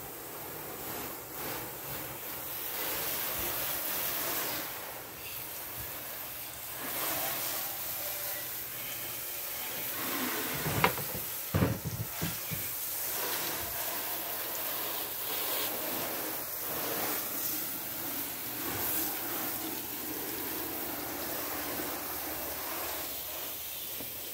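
Garden hose spray nozzle spraying water onto a car in a steady hiss, rinsing it down with water. A few sharp knocks come about halfway through.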